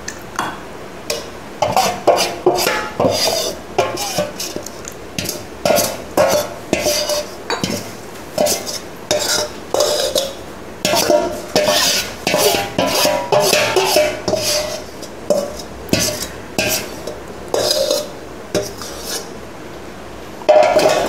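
Metal spoon scraping and clinking against a stainless-steel bowl in quick irregular strokes, scooping out thick mango pickle.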